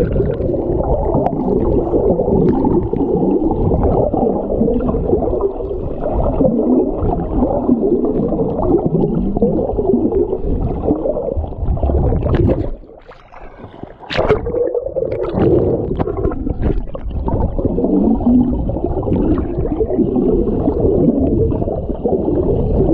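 Pool water churning and sloshing as a swimmer swims lengths. It sounds muffled and heavy, and there is a short lull about 13 seconds in.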